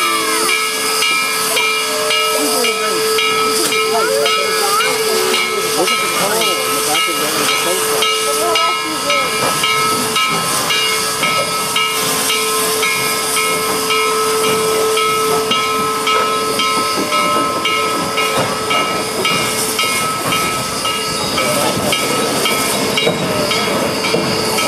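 2-8-0 steam locomotive hissing steam steadily and loudly as it stands, with a couple of held tones in the hiss.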